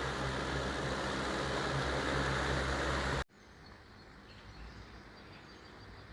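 Electric fan running, a steady rush of air over a low motor hum. It cuts off abruptly about three seconds in, leaving faint room noise.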